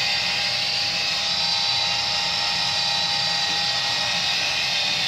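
Viessmann Vitodens 100 condensing gas boiler's combustion fan running steadily after being dried of condensate, a continuous rushing noise with a thin whine in it.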